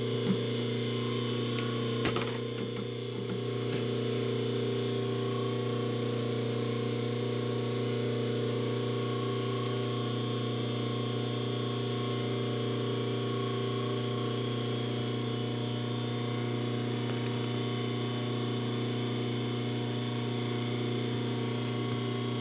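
Steady electric machine hum, an even low drone with a faint higher whine over it, from running shop machinery. A single sharp click about two seconds in.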